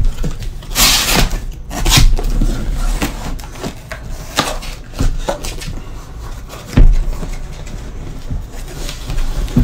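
Cardboard shipping case being handled: its flaps pulled open and scraped, hands knocking against the card boxes inside. A brief rustling scrape about a second in, scattered knocks, and a low thump near seven seconds.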